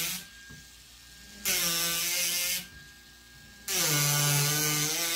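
Ryobi 4V cordless power carving tool with a gouge bit, its reciprocating head buzzing in bursts of about a second as it is pressed into wood, twice, after one burst that stops just at the start. A faint steady whine carries on between the bursts.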